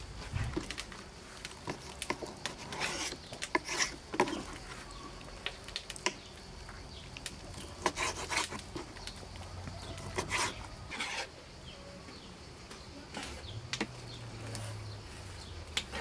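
Kitchen knife cutting raw chicken breast on a bamboo cutting board: irregular taps and knocks of the blade against the wood, with short slicing strokes.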